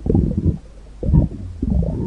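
Stomach rumbling and gurgling: a burst of low gurgles, a short lull about half a second in, then a loud gurgle and a longer rumble building near the end.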